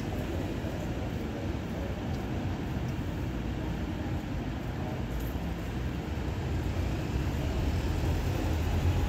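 Street traffic: the steady low rumble of engines from a slow queue of cars, a van and a bus, growing a little louder near the end.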